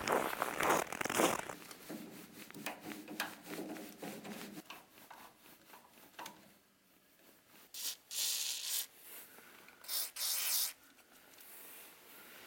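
Rustling of clothing and a hard case being handled. Then come faint scrapes and clicks, and two short hisses about two seconds apart from an aerosol spray can.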